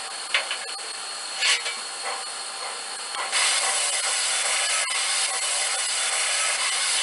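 Steam hiss from a model steam locomotive's DCC sound decoder, played through a small mobile-device speaker. It is quieter at first with a couple of short puffs, then about three seconds in it turns into a louder, steady hiss.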